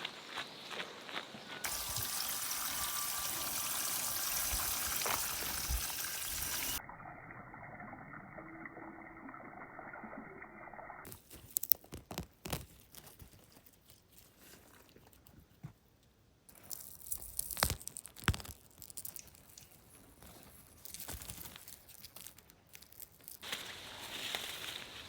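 Water pouring and trickling, heard as an even hiss that changes abruptly several times, with scattered clicks and knocks between.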